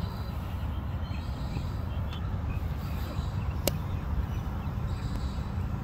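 Steady low outdoor rumble, with one sharp click about three and a half seconds in.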